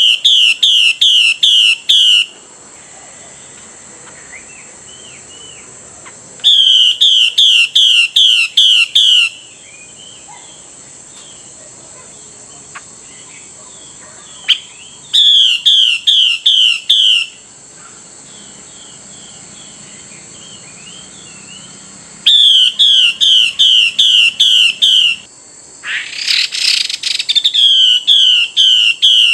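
Female Chinese hwamei calling: loud runs of six to eight quick, repeated whistled notes, each run lasting two to three seconds and coming back every few seconds, five runs in all. A short harsh rasping call comes a little before the last run. Soft chirps fall in the gaps, over a steady high insect drone.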